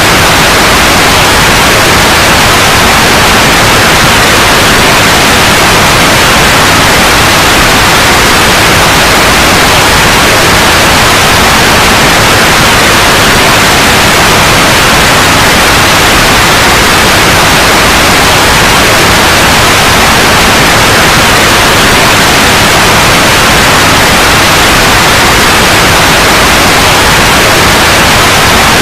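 Loud, steady white noise: an even, unchanging hiss across the whole range, played as a continuous background track.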